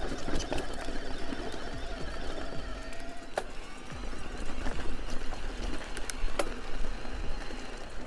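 Electric mountain bike ridden over a rocky dirt trail: tyres crunching on gravel, with a faint steady whine from the mid-drive motor and a few sharp clicks and knocks from the bike.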